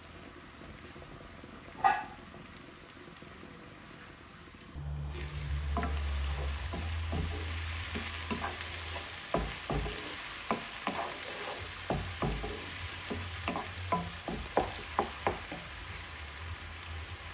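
Chopped onions frying in oil in a non-stick pan, a steady sizzle. From about five seconds in, a wooden spatula stirs them, with many short scrapes and knocks against the pan over a low hum.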